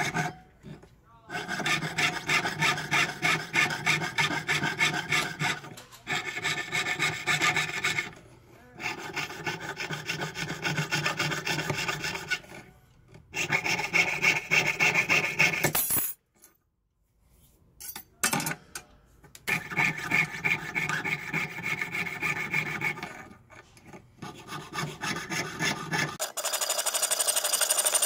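Jeweler's saw cutting a small silver sheet with quick, even strokes, in several bouts broken by short pauses and one longer pause of about two seconds midway. Near the end the strokes turn thinner and higher.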